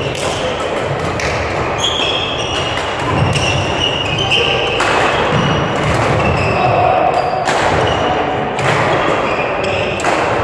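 Badminton play in a large sports hall: several sharp racket strikes on the shuttlecock, spaced irregularly about a second or more apart, with short high squeaks of court shoes on the floor.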